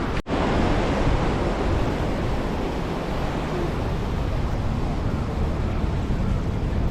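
Steady rush of flowing river water, broken by a momentary gap near the start.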